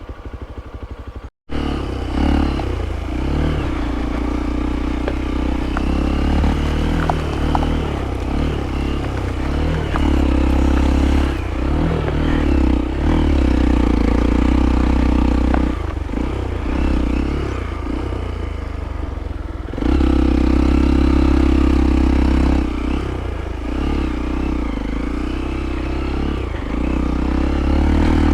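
Hero Impulse motorcycle's single-cylinder engine running under load on muddy off-road ground, its revs rising and falling with the throttle. A few sharp knocks and rattles from the bike come through about six to eight seconds in.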